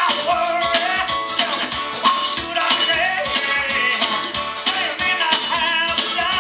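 A pop-rock song with a sung lead vocal over a band with guitar and a steady beat.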